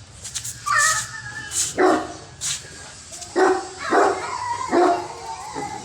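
A dog barking about five times in short, separate barks, with a couple of brief scratchy noises between the first barks.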